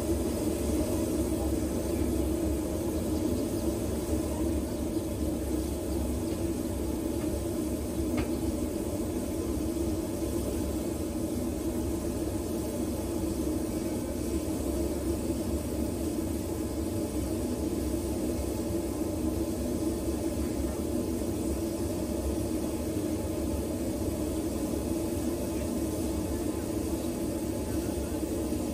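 Steady low rumble and hum of a vehicle running, unchanging throughout with no clear rhythm or sudden sounds.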